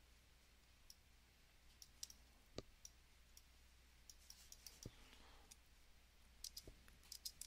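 Faint, scattered computer mouse and keyboard clicks against near-silent room tone, a few of them bunched together near the end.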